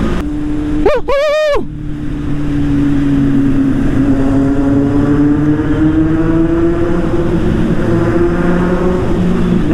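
Motorcycle engine running under way, its pitch rising slowly as the bike accelerates, over steady road and wind noise. About a second in, a short horn-like honk sounds.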